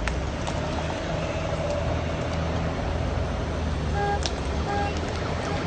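Steady low rumble of an idling vehicle engine, with two short high tones about four and five seconds in.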